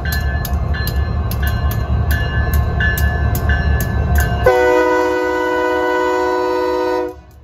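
Two diesel switching locomotives passing close by, their engines rumbling low with regular sharp clicks about two to three times a second. About four and a half seconds in, a multi-note locomotive air horn sounds one steady chord for about two and a half seconds, then cuts off sharply.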